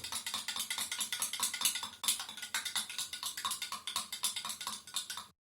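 A metal spoon clinking quickly and steadily against the side of a cup as it stirs butter into warm milk to dissolve it. The clinking stops just at the end.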